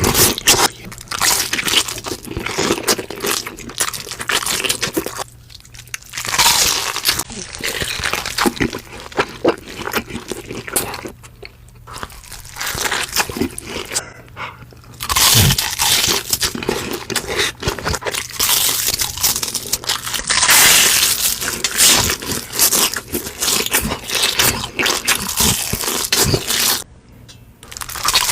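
Close-miked crunching and chewing of crispy food: repeated crackly bites and chewing, with a few short pauses between mouthfuls.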